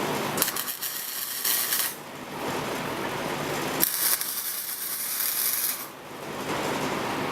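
Two bursts of harsh, hissing metalwork noise, each about one and a half to two seconds long and starting with a sharp click.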